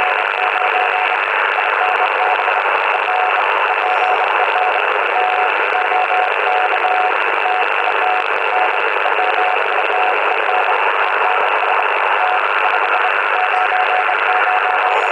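Morse code (CW) signal on the 40-metre band coming from a Yaesu FT-80C transceiver's speaker: one steady-pitched tone keyed on and off in dots and dashes over a constant bed of receiver hiss.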